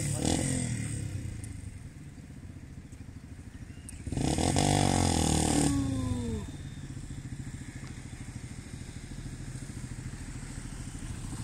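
Cable car's haul rope and running gear making a steady mechanical drone with a fine rapid pulse as the car moves along its cable. From about four seconds in, a louder drawn-out pitched sound lasts about a second and a half and falls in pitch as it ends.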